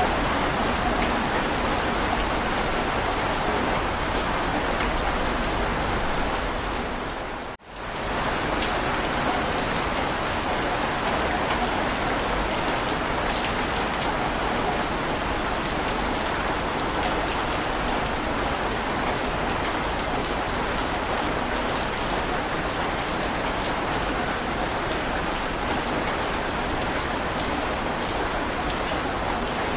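Steady heavy rain, an even dense hiss of drops. It fades out briefly and comes back about seven and a half seconds in.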